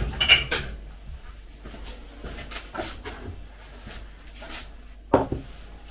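A cat licking and lapping at a plate, a run of small wet ticks, with a sharp clink of crockery about a quarter second in and a louder knock a little after five seconds.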